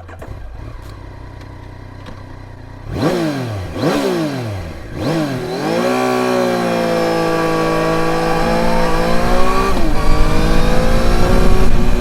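Yamaha Tracer 900 GT's three-cylinder engine through its stock muffler: idling, then three quick throttle blips about a second apart, then pulling away and accelerating steadily, with a short dip near ten seconds like a gear change.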